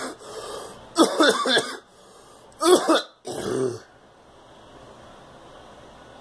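A girl coughing and clearing her throat, in a few bursts over the first four seconds.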